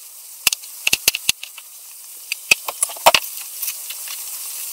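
Kitchen knife knocking on a plastic cutting board as red onion is diced and gathered up: a few sharp taps in the first second and a half and a short cluster about three seconds in. Under them runs a steady hiss, growing slowly louder, of chanterelle mushrooms frying in a pan.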